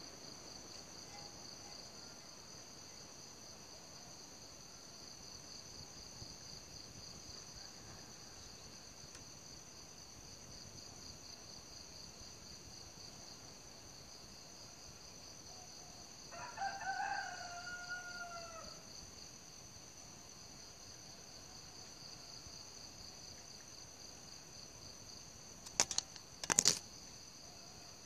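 Crickets chirping in a steady, high, even trill, with a rooster crowing once a little past the middle. Near the end come two sharp knocks a moment apart, the loudest sounds.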